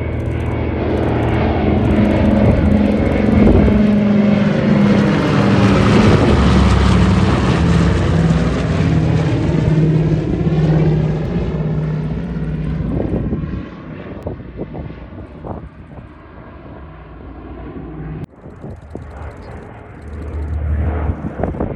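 A World War II piston-engined propeller aircraft flying past, loud for the first dozen seconds and then fading. There is an abrupt break about 18 seconds in, and the engine swells again near the end.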